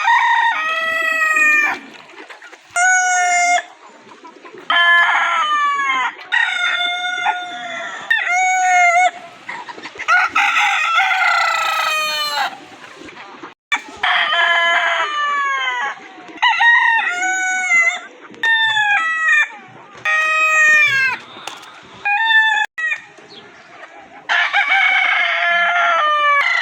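Roosters crowing, about a dozen cock-a-doodle-doos in quick succession, with a few abrupt cuts between recordings.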